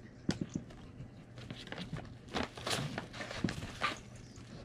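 Scattered rustles and light knocks as a German Shepherd noses through an open box of pet items, with a busier stretch of rustling near the middle.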